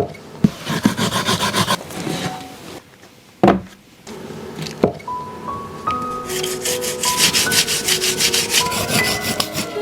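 Rhythmic scraping or rubbing strokes, about five or six a second, in two runs, with a couple of sharp knocks between them; soft music with a simple stepping melody comes in about halfway.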